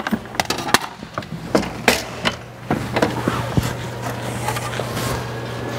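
Handling noise as a person gets out of a truck cab and gathers papers off the cab floor. A quick run of clicks, knocks and rustles lasts for roughly the first three seconds, then gives way to a steady low hum.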